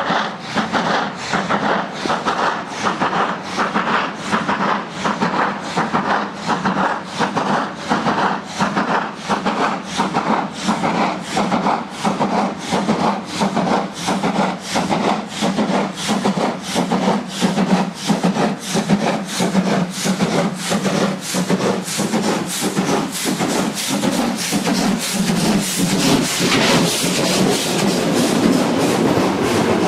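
DR class 50 steam locomotive 50 3648 working hard under load, its exhaust beats coming in a fast regular chuff with an uneven, limping rhythm caused by a damaged valve. Near the end it passes close by, louder, with the rumble of the coaches rolling behind it.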